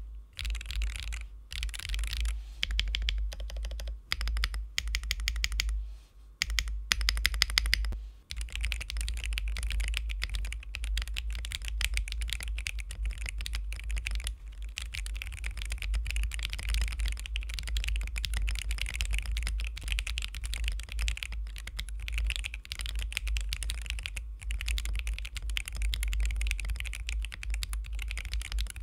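Mechanical keyboard typing on Akko Dracula linear switches, with POK stems and a light 33 g actuation force. The keystrokes come in short bursts with brief pauses, then as steady continuous typing from about eight seconds in. The sound is mid-focused and free of rattle, with a slightly muffled bottom-out.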